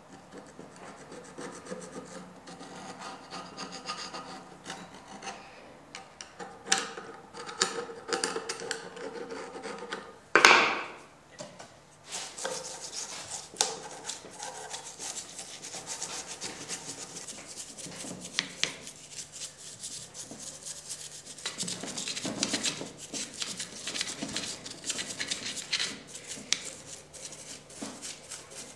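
A bristle brush scrubbing the metal works of an antique Singer sewing machine during cleaning, a fast, scratchy rubbing. A single loud knock comes about ten seconds in.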